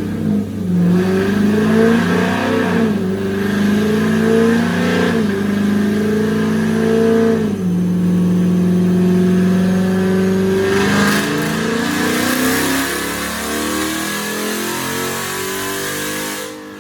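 Car engine running and revving, its pitch rising, holding and dropping several times, fading near the end.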